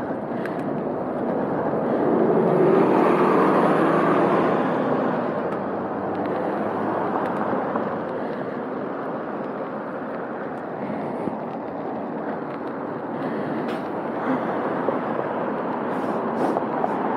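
Steady wind and road noise from riding a bicycle in traffic, with a car passing that is loudest a few seconds in.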